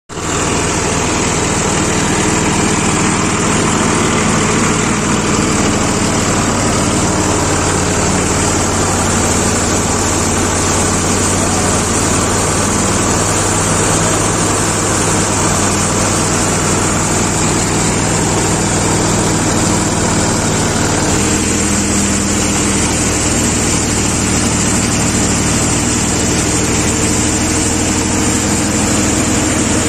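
Ford 3600 tractor engine running steadily under load, driving a haramba thresher that is threshing mustard, with the drum's whirring and rattling mixed in. The pitch of the drone shifts slightly about two-thirds of the way through.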